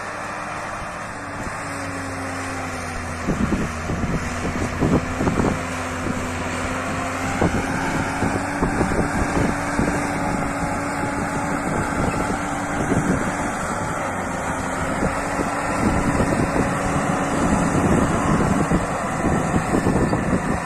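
Claas Challenger rubber-tracked tractor's diesel engine running steadily under load as it pulls a cultivator through the soil, growing louder as it approaches. Wind gusts buffet the microphone from about three seconds in.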